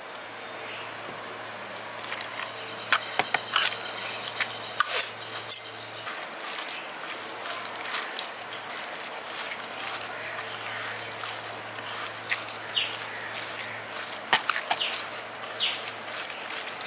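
Hands rubbing and squeezing a damp semolina, onion and spice mixture in a paper plate: soft grainy rustling with scattered sharp crackles, over a faint steady hum. This is water being worked into the dry mix to make pakora batter.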